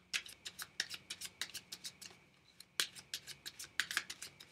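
A deck of Fournier 605 playing cards being cut and handled in the hands: a quick run of sharp, irregular card clicks and snaps, with a few louder ones about three and four seconds in.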